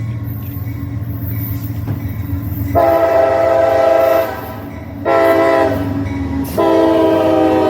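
A freight train's locomotive air horn sounds a multi-note chord in long blasts: two long blasts, then a third starting near the end, over the low rumble of the passing train.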